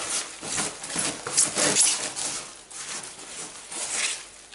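Gloved hands kneading wet potting compost in a plastic tub: an uneven run of rustling, scraping strokes as the damp soil is worked into a sticky mix that holds together.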